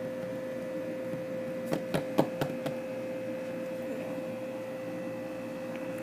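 A steady electrical hum with a quick run of four or five sharp clicks or taps about two seconds in.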